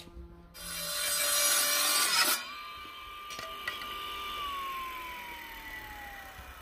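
Small benchtop table saw cutting a piece of pallet wood: a loud burst of cutting noise lasting about two seconds over the motor's whine, which dips as the blade bites. After that the whine holds briefly, then falls steadily in pitch as the blade spins down after switch-off. A sharp click comes at the very start.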